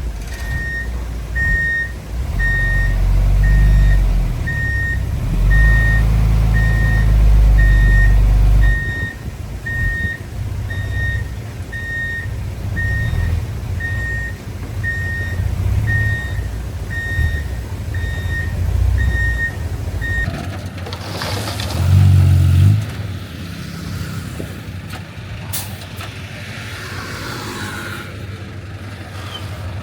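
A heavy diesel machine's engine runs under a reversing alarm beeping about once a second. The beeping stops abruptly about two-thirds of the way through, leaving a lighter engine sound with a brief louder surge a couple of seconds later.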